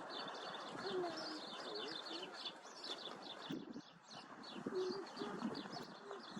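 A chorus of small birds chirping rapidly and continuously, with a few short lower calls, over a steady background rumble.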